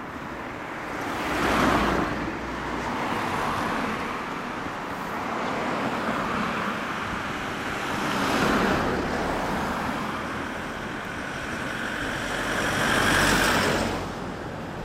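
Road traffic: vehicles passing by on the street, three times, each a rising and falling rush of tyre and engine noise. The last pass, near the end, carries a steady whine.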